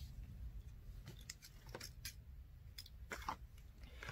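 Faint, scattered clicks and light rustles of small items being handled by hand, with a small cluster about three seconds in, over a low steady room hum.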